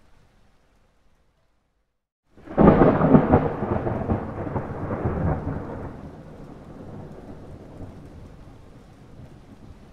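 A thunder clap: after a short silent gap, a sudden loud crack of thunder about two and a half seconds in, rumbling for about three seconds before settling into a low, steady rumble with rain hiss.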